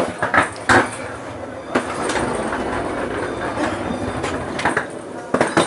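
Footsteps, bumps and handling knocks from someone walking down a sleeping-car corridor. Several sharp knocks stand out over a steady hiss.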